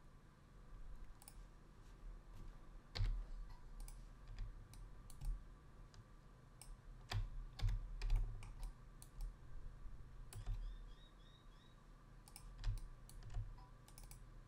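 Computer mouse and keyboard clicks, irregular and scattered, over a low steady hum.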